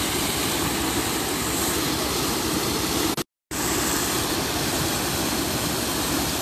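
Floodwater from the Surma River rushing through a breached dike in a steady, loud rush of churning water. The sound cuts out completely for a moment about three seconds in.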